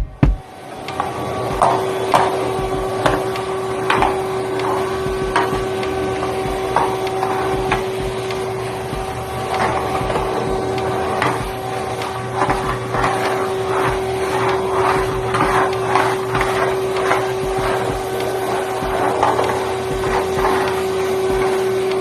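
A steady motor hum with irregular knocks and clatter over it throughout.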